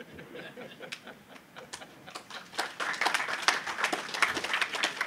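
Audience applauding, sparse at first and building to dense clapping about halfway through.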